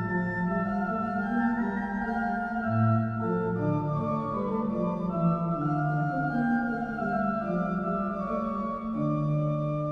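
Background music: an organ playing slow chords of long held notes that change every second or two.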